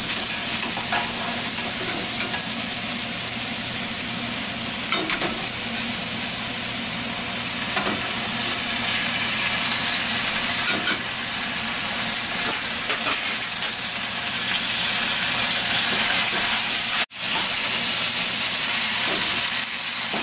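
Pork strips, vegetables and lo mein noodles sizzling in a hot wok while a spatula and tongs stir and toss them, with scattered scrapes and clicks of the utensils on the pan. The sound cuts out for an instant about three quarters of the way through.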